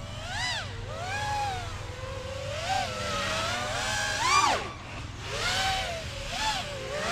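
Freestyle FPV quadcopter's brushless motors and propellers whining in flight, the pitch swooping up and down with each throttle change, with a sharp climb and drop about four seconds in.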